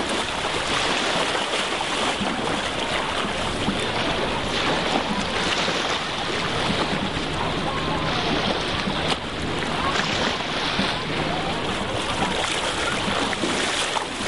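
Steady wash of small sea waves at the shoreline, with wind noise on the microphone.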